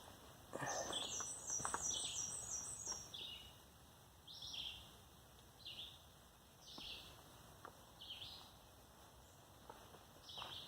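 Songbirds singing in woodland: a quick run of high, descending chirps about a second in, then short chirped calls repeating about once a second.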